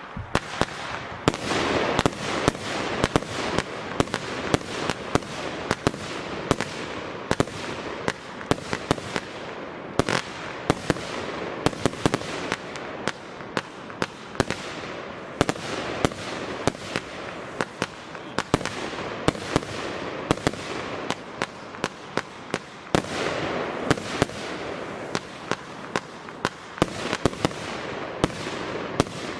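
F2 compound fireworks battery firing: a continuous barrage of launch thumps and bursts, several a second, over a steady hiss.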